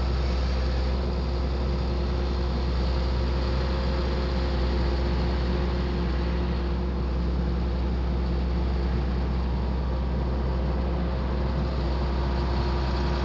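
Tractor engine running steadily while pulling a field boom sprayer, heard from on board: an even low drone with a steady hum above it, no change in speed.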